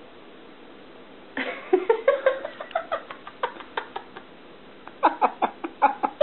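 A cat making a run of short squeaky, rising little sounds mixed with sharp clicks, starting about a second and a half in, with another quick cluster near the end.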